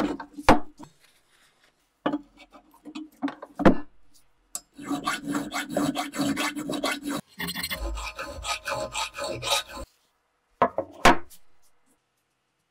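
Flat hand file rasping on the steel of an axe head, quick back-and-forth strokes in two runs of a few seconds each. A few sharp knocks come before and after the filing.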